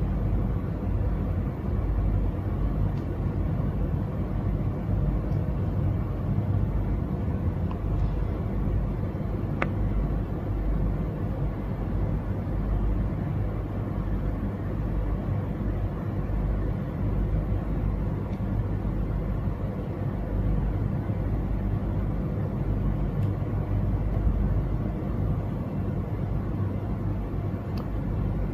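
Steady low rumble of background machinery noise with a faint hum, even in level throughout, and a faint click about ten seconds in.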